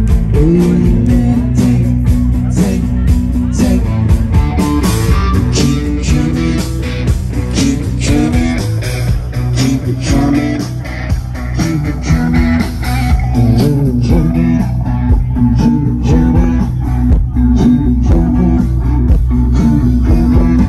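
Live band playing: electric guitar and bass guitar over a steady beat.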